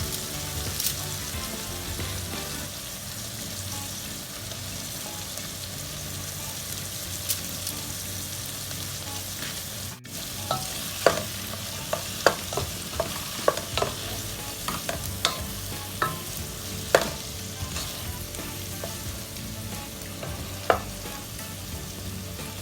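Shrimp, garlic, onion and bell pepper sizzling steadily in hot oil in a pan. From about halfway through, a spatula clacks against the pan again and again as the mix is stirred.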